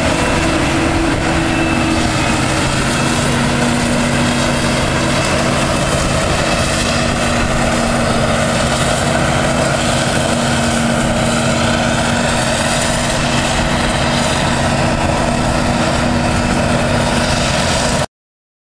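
Heavy diesel farm machinery running steadily under load at a silage maize harvest, a mix of engine hum and broad mechanical noise; it cuts off suddenly near the end.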